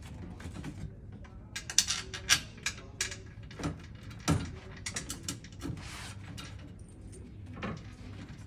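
Irregular clicks, knocks and creaks of metal bed-frame hardware being handled during assembly of a gas-lift storage bed, with a few louder knocks about two and four seconds in.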